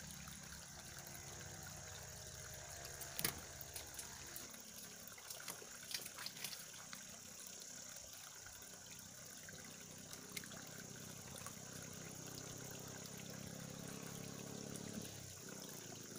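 Faint, steady outdoor background hiss with a few scattered light clicks and knocks.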